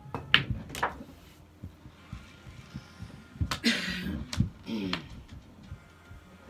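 Pool cue striking the cue ball, with sharp clicks of billiard balls colliding in the first second and softer knocks of balls rolling on the table after. About halfway through there is a louder burst of noise with a brief voice-like sound.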